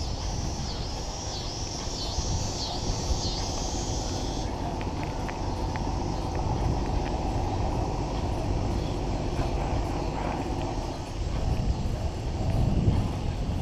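Wind buffeting the microphone with a steady low tyre rumble as a bicycle rolls along a paved road. High repeated chirps sound over it for the first few seconds.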